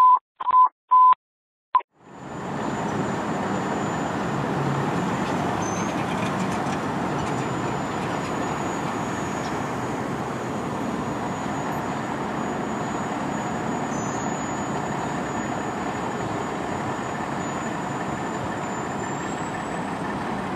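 A few short, evenly pitched electronic beeps in the first two seconds. Then a fire engine's diesel idles steadily with its emergency lights on, a thin high whine running over the hum.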